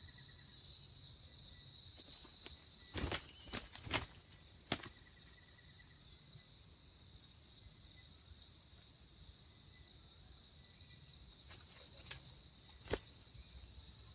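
A steady high-pitched insect drone, with a cluster of sharp clicks or snaps about three to five seconds in and two more near the end.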